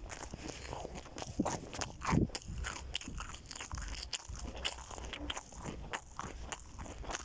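A person chewing crunchy food, with irregular crisp crunches and bites and one louder bite about two seconds in.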